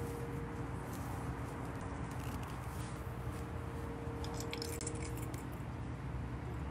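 Small metallic clicks and clinks from a handheld digital luggage scale and its metal hook being picked up and handled, clustered about two-thirds of the way in, over a steady low background hum.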